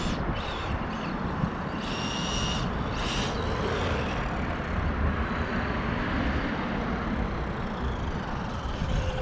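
Electric-converted Losi XXX-NT RC truck driving, with steady rolling noise. Its motor gives two short high whines under throttle, about two seconds in and again a second later.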